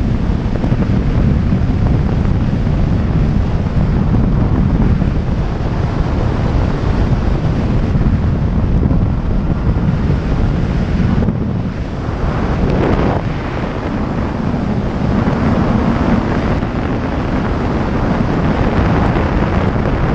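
Wind rushing and buffeting over the camera microphone of a motorcycle riding at road speed, with road and engine noise underneath.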